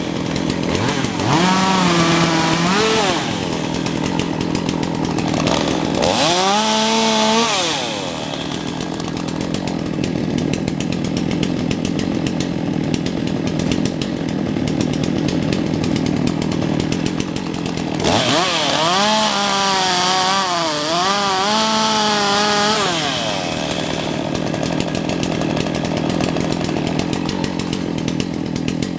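Two-stroke chainsaw cutting a downed oak log. The engine pitch swings up and down near the start, again around six seconds in, and again from about eighteen to twenty-three seconds, and between those the saw runs steadily in the cut.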